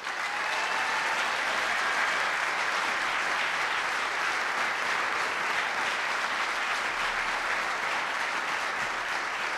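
An audience applauding steadily. The clapping starts abruptly and eases off slightly near the end.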